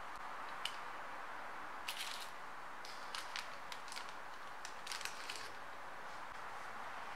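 Soft baked bread rolls being torn apart by hand: a scatter of short, soft crackles and tearing sounds, thickest around two and five seconds in.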